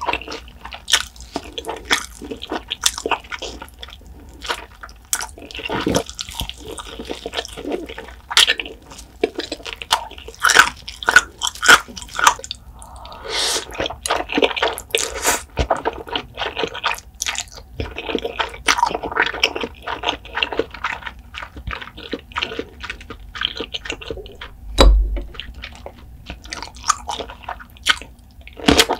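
Close-miked eating sounds: wet chewing and crackly bites of cheese-seasoned fried chicken and spicy carbonara ramen noodles. About halfway through there is a long noodle slurp, and near the end a crisp bite into a pickle.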